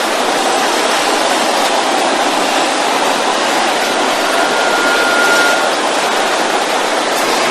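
A large congregation praying aloud all at once: a steady, dense wash of many voices with no single voice standing out.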